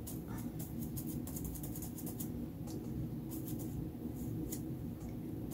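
Irregular small clicks and soft taps of a big round foam sponge being dabbed into wet purple acrylic paint on a palette, over a low steady hum.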